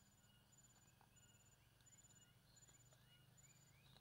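Near silence: faint outdoor ambience with a thin high chirp repeating about every 0.7 s, joined in the second half by a run of short rising chirps about three a second.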